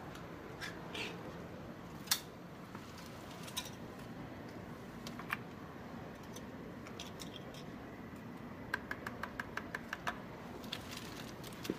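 Sharp clicks over a steady low hiss: a few single clicks, then a quick run of about ten clicks at roughly seven a second, about nine seconds in.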